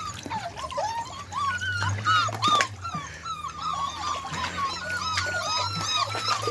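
Several beagle puppies whimpering and yipping in a rapid, overlapping string of short, high whines, over a low steady hum.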